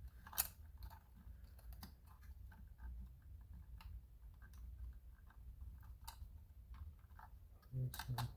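Irregular small clicks and taps of hands working inside a FrSky Taranis X9D+ radio transmitter, reseating ribbon-cable connectors and handling its plastic case, over a low steady hum.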